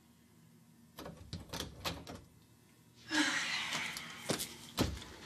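A wooden door being opened from outside and shut: a run of clicks and knocks from the lock and handle, a loud rushing rustle about three seconds in, and a sharp thump near the end.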